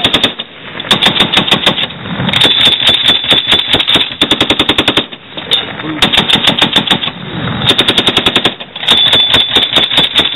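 Machine guns firing in long, rapid bursts, several guns at once, with a few short breaks between bursts.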